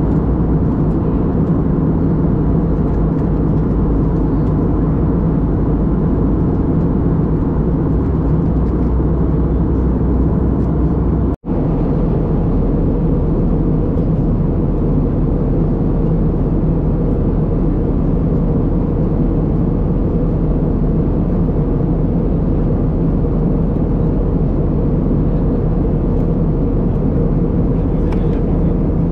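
Steady cabin noise of an Airbus A320-family jet airliner in flight: engine drone and rushing air heard from a window seat inside the cabin. The sound cuts out for an instant about eleven seconds in.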